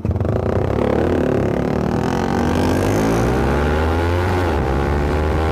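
Yamaha R15 and KTM Duke 200 motorcycles with aftermarket exhausts (Akrapovič replica, SC-Project) accelerating. The loud exhaust notes climb in pitch, and one dips briefly past the four-second mark as it shifts or lifts off.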